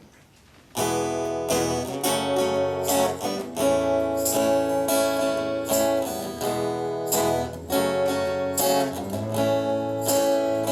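Acoustic guitar strumming a song's introduction, starting about a second in after a brief hush, with a steady rhythm of strokes.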